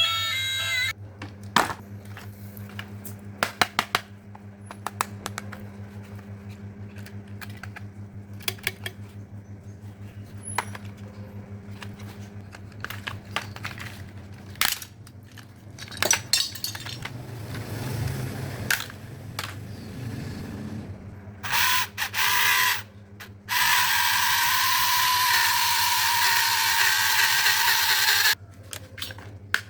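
Small hard toys clicking and clattering as they are handled and sorted, over a steady low hum. Near the end comes a loud, steady whir lasting about four seconds, which then stops.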